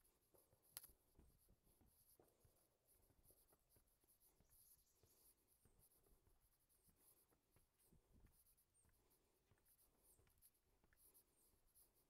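Near silence: faint summer-wetland ambience with a faint, rapid, very high-pitched insect-like pulsing, and a single click just under a second in.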